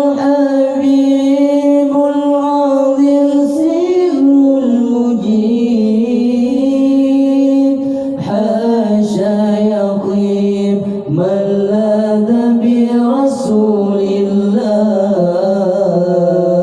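A solo singing voice drawing out a long melismatic phrase of an Arabic devotional song to the Prophet, holding notes and sliding between pitches without clear words.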